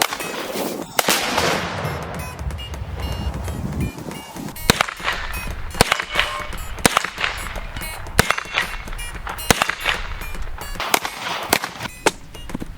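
Homemade intro noise beaten out on a desk: a string of sharp, irregular knocks and bangs.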